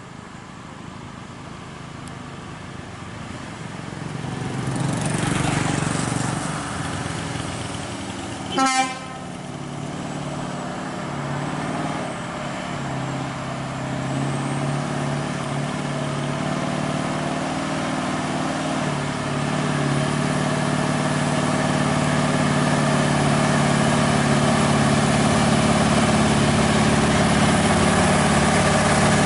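Scania R580's V8 diesel engine pulling a heavy excavator-bucket load, growing steadily louder as the truck comes closer. A vehicle passes about five seconds in, and a short horn beep sounds just before nine seconds.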